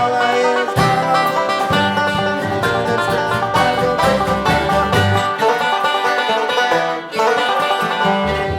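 A bluegrass-style string band playing, with banjo and guitar picking and no singing.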